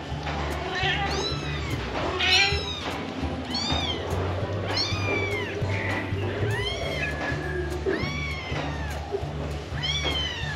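Newborn kittens mewing: short, high-pitched cries that rise and fall, about one a second, over background music with a steady low beat.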